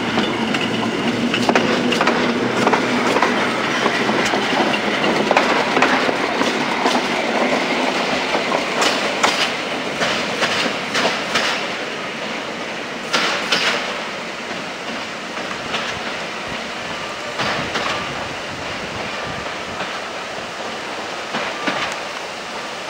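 EN57 electric multiple unit pulling away from the station, its wheels clicking over the rail joints in clusters. The rumble fades steadily as the train draws away.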